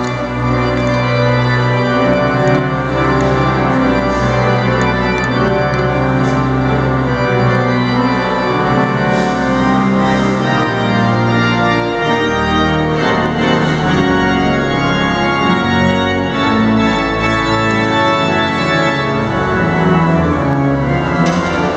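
Rochester Cathedral's pipe organ playing held chords that move on to new chords every second or so, in a reverberant cathedral.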